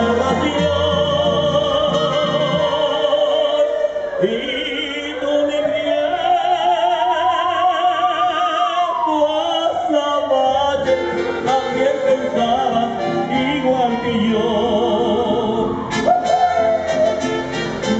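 Amplified male ranchera singing over a mariachi-style accompaniment: long held notes with a wide vibrato that slide slowly up and then down, several times.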